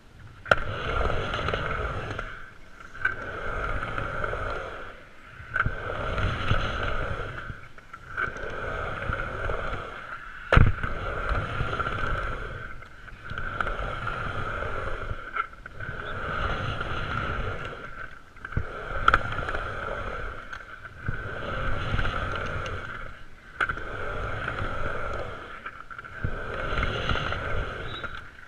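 Skateboard wheels rolling on concrete, swelling and fading about every two and a half seconds as the board carves back and forth through the bowl's transitions, with a few sharp clacks, the loudest about ten seconds in.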